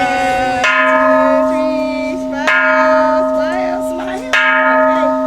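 Japanese bronze temple bell (kansho) struck three times, a little under two seconds apart, each stroke a sharp clang that rings on with a steady hum carrying into the next. These are strokes of the 108-stroke New Year's Eve ringing (joya no kane).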